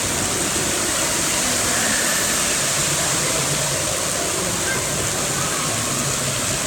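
Steady rush of flowing water pouring down a water slide's flume and along its run-out lane.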